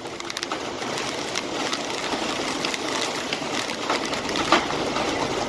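Heavy wind-driven rain in a storm: a steady rushing hiss with many scattered sharp taps.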